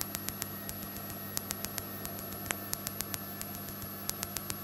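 Steady electrical hum and hiss on the light aircraft's intercom audio feed, with irregular short crackling clicks of static throughout.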